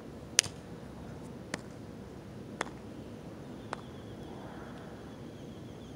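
A soccer ball struck four times about a second apart, each hit fainter than the one before, over a faint outdoor hiss.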